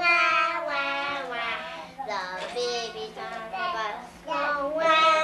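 Children singing a song in long held notes, with short breaks about two seconds in and about four seconds in.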